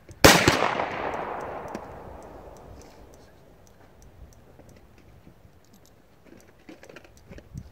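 A single loud rifle shot about a quarter second in, from another shooter on the range, echoing away over about two and a half seconds. Afterwards there are faint small ticks from the rifle scope's windage turret being clicked over.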